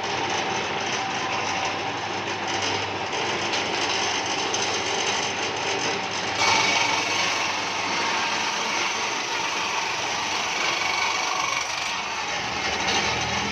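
A tool working wood: a steady mechanical grinding and rasping that turns brighter and higher about six seconds in.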